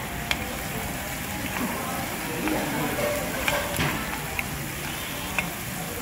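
Thin slices of beef sizzling on a hot grill pan while metal tongs turn them, with a few sharp clicks of the tongs against the pan. Voices murmur in the background.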